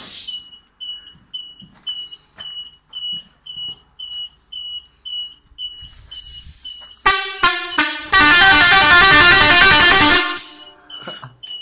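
Multi-trumpet sequencing 'Arab' air horn fitted to a New Holland TT4.50 tractor, being tested. About seven seconds in it gives four short loud blasts, then a two-second blast of rapidly alternating notes that cuts off suddenly.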